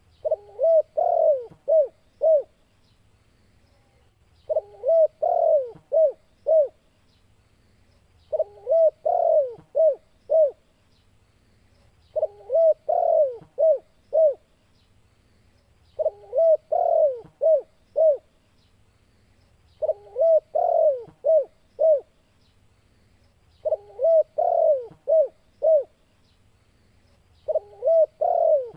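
Spotted dove (tekukur) cooing its 'kuk 2' song type, repeating the same phrase about every four seconds. Each phrase has a few soft gliding notes and a longer coo, then ends in short clipped 'kuk' notes.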